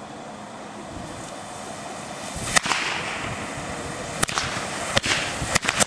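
Faulty Winda smoke device whose nozzle has failed, venting a jet of flame and sparks with a rushing hiss that grows louder. A sharp crack comes about two and a half seconds in, then several more over the last two seconds.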